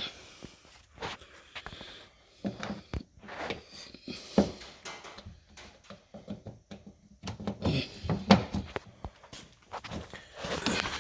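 Irregular clicks, knocks and scraping as door-handle parts are worked inside a 2006 Ford Focus door, trying to seat the handle's clip in its groove. Sharper knocks come about four seconds in and again a little after eight seconds.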